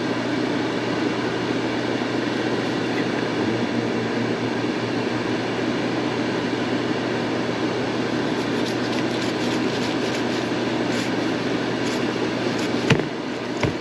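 Air fryer fan running with a steady whir and low hum while it preheats. In the second half a knife ticks lightly as it cuts through pork loin, and there are two sharp knocks on the cutting board near the end, the first the loudest sound.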